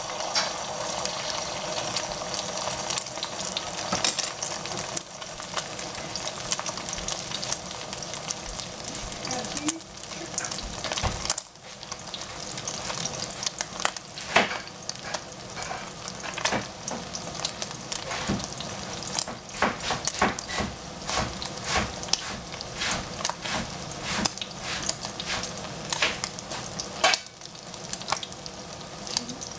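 Beaten egg frying in oil in a nonstick pan: a steady sizzle with frequent crackles and pops, dipping briefly about a third of the way in.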